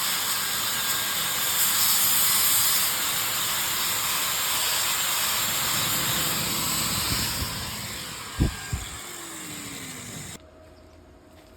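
Steady hiss of arc welding on a steel excavator arm, dying away after about seven seconds, with two low thumps near the end.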